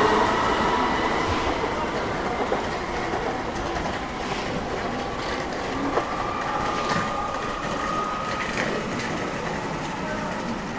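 DB class 422 electric multiple unit pulling away and receding, its motors giving a slowly rising whine over rail noise that fades, with a few sharp clicks of wheels over rail joints.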